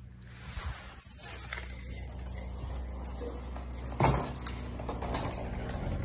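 Bagless upright vacuum cleaner running steadily with a low motor hum. A few light knocks come about half a second in, and a loud clack about four seconds in.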